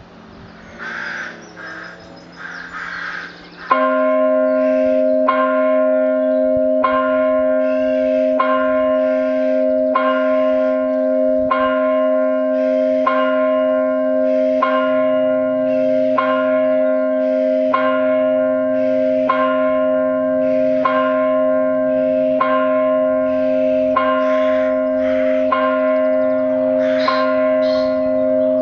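The church carillon tolling a single bell, one stroke about every second and a half, beginning suddenly about four seconds in and ringing on steadily. This is the tolling bell that rings for the five minutes before the Sunday service begins.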